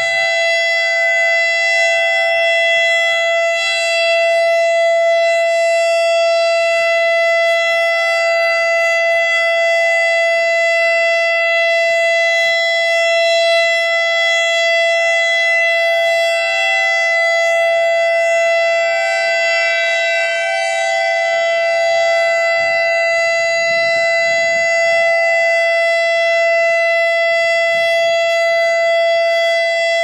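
ASC I-Force electronic outdoor warning siren sounding a loud, steady single-pitch tone, the steady Alert signal of a siren test.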